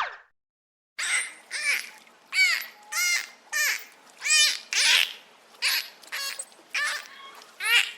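A brief falling glide right at the start, then, from about a second in, birds giving harsh, crow-like caws over and over, about two calls a second.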